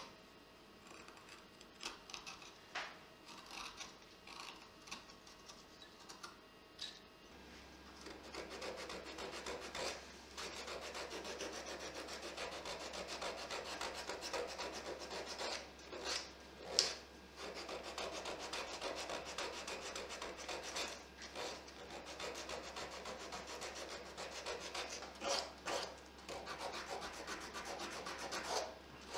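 Hand work on a small butternut carving: a few light, separate cuts at first, then from about seven seconds in a steady run of quick rubbing and scraping strokes of a hand tool against the wood.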